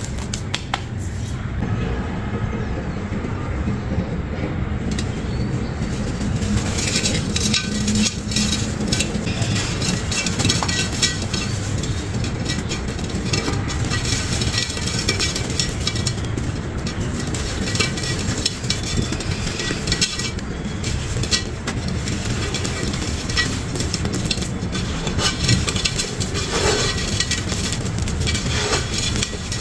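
Dry, stony sand-cement crumbles crushed and rubbed between bare hands: a dense, continuous gritty crunching and crackling as grains and dust spill onto the floor and into an unglazed clay pot.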